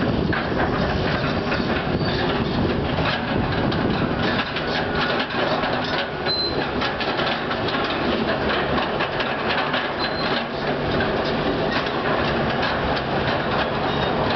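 Caterpillar long-reach demolition excavators at work: steady diesel engine noise under a dense, continuous clatter of crunching and falling rubble, with a couple of brief high squeaks.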